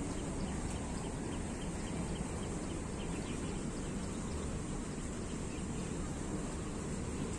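Steady low outdoor background rumble with faint, scattered bird chirps over it.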